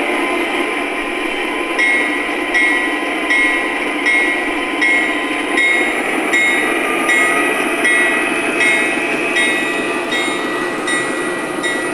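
MTH Premier O-gauge model diesel locomotive running with its onboard sound system playing diesel engine rumble. From about two seconds in, a bell rings about once every three-quarters of a second.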